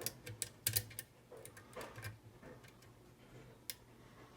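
Light, irregular metallic clicks of a lock pick working the pins of an ERA rim cylinder under tension, several in quick succession over the first two seconds, then a single click near the end.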